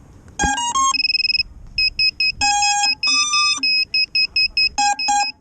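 Electronic beeps from an FPV quadcopter's motors as the ESCs power up: three quick rising tones, a held tone, then runs of short beeps.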